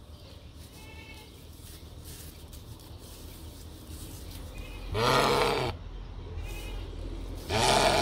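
Sheep bleating twice, each bleat a wavering call lasting under a second, the second coming about two and a half seconds after the first.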